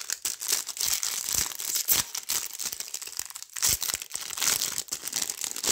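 Foil trading-card packet crinkling and tearing as it is handled and ripped open, a dense run of sharp crackles.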